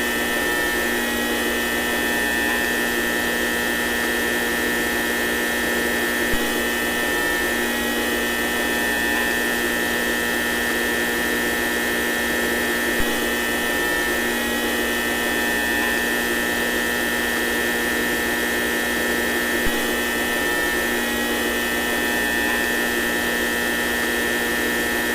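Steady electric light hum: an unbroken buzzing drone of several fixed tones, with a faint tick about every six and a half seconds.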